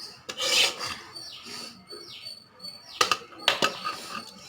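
A spoon scraping and scooping rice in a cooking pot: several short rough scrapes, one near the start and a quick run of them about three seconds in.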